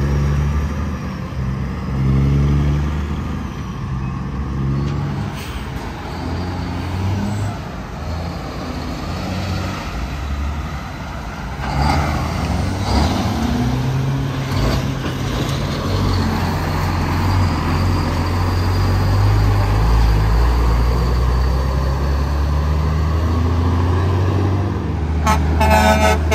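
Heavy diesel tractor-trailers pulling away under load and passing, the engines working up through the gears with pitch climbing and dropping back at each shift, over road traffic noise.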